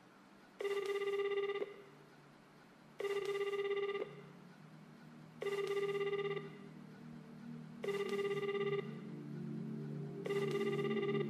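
A telephone ringing: a one-second electronic ring that repeats about every two and a half seconds, five times. A low synth music bed fades in beneath the rings from about four seconds in and grows louder toward the end.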